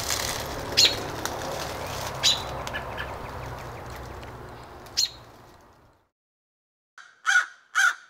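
Outdoor ambience: a steady low rumble with a few short bird chirps, fading out about six seconds in. After a moment of silence, a crow caws loudly, twice near the end.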